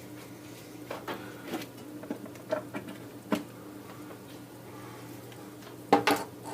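Small tools handled on a workbench: scattered light clicks and taps, then two louder knocks about six seconds in, over a steady low hum.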